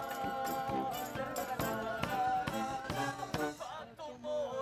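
A street band playing: clarinets and trombones over a drum beat about twice a second. The playing dips briefly near the end.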